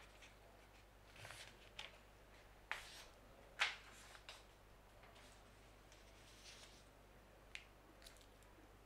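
Hushed hall with a scatter of short, faint clicks and ticks, about eight of them at uneven intervals, the loudest about three and a half seconds in.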